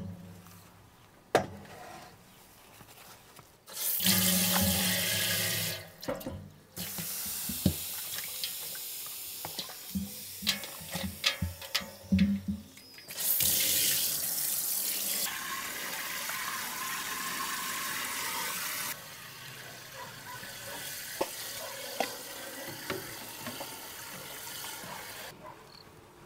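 Water spraying from a garden-hose spray nozzle into an enamel pot lined with cloth, in several runs that start, stop and change strength. A few sharp knocks fall in between.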